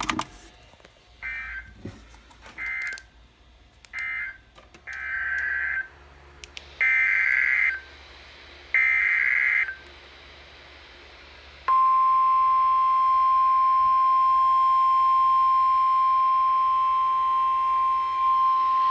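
NOAA Weather Radio SAME data bursts: three short end-of-message bursts, then three louder header bursts about a second each, announcing a new alert. A little past halfway, the steady single-pitch 1050 Hz weather radio warning alarm tone starts, the signal that a warning message follows.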